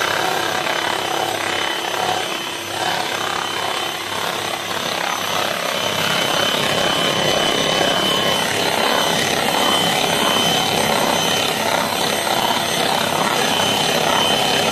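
Electric hand mixer running steadily at speed, its metal beaters whipping egg whites in a bowl, a constant motor whine over a whirring churn. The whites are being beaten to a fluffy, foamy stage. The motor cuts off right at the end.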